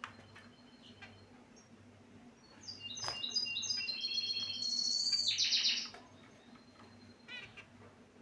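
Caged finch song: a phrase of about three seconds, short stepped notes running into a buzzy trill, with soft single chirps before it and one near the end.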